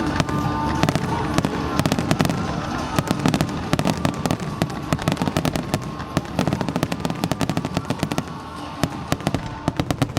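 Aerial fireworks going off in a dense barrage of rapid cracks and bangs, many a second, growing gradually quieter toward the end.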